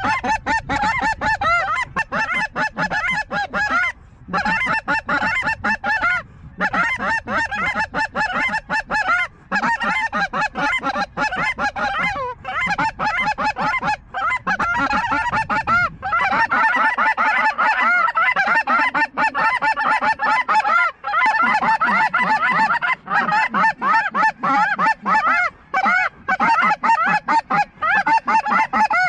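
A large flock of snow geese calling overhead: dense, overlapping honking calls with no break, growing louder from about halfway through as more birds circle in.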